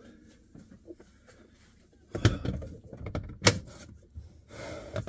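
A rubber mat being laid onto a Hillman Imp's rear seat back panel: quiet for about two seconds, then knocks and rubbing as the mat is handled into place, with one sharp knock about three and a half seconds in.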